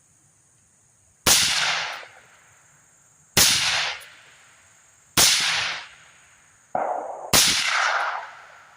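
Four suppressed rifle shots from a 16-inch AR fitted with a Yankee Hill Machine T2 suppressor, firing 55-grain .223 Remington, spaced about two seconds apart. Each is a sharp crack with a short tail of echo. A duller, lower report comes just before the fourth shot.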